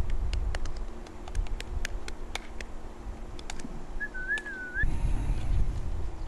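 A short, wavering high whistle about four seconds in, calling the wolf pups, over faint scattered ticks. Low rustling noise follows near the end.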